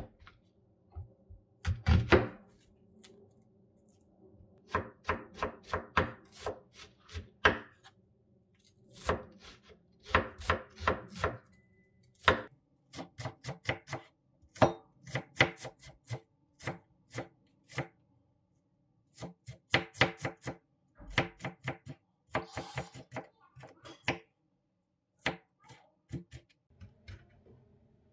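Chef's knife chopping an onion on an end-grain wooden cutting board: runs of quick, sharp knife taps, a few a second, broken by short pauses.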